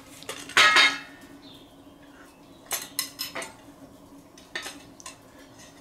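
Long-handled sandwich iron clanking on a steel fire plate: one loud ringing metal clatter about half a second in, then a series of lighter clinks and knocks as the iron is handled and opened.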